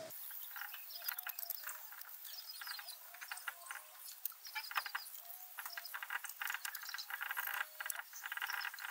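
A brush scrubbing caked grime off the front of an engine block: a steady run of short, scratchy strokes.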